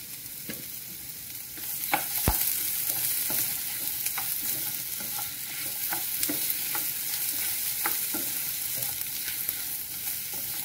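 Diced potatoes and sliced turkey wieners sizzling as they fry in a frying pan, a black ladle stirring them with scrapes and light knocks against the pan. The sizzling grows louder about a second and a half in, and there is a sharper knock just after that.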